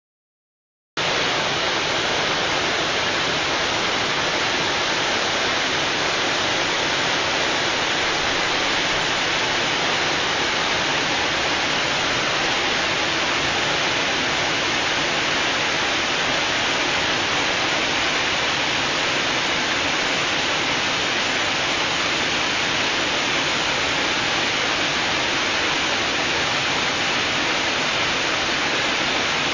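Several small waterfalls pouring over a rock ledge into a lake: a steady, even rush of falling and splashing water that starts abruptly about a second in.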